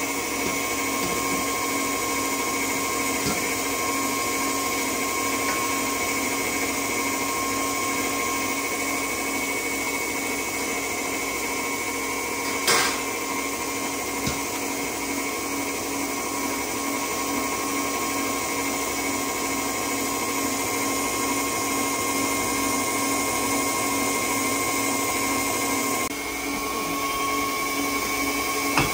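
A small electric motor whining steadily, with one sharp click about halfway through and a slight shift in its pitch near the end.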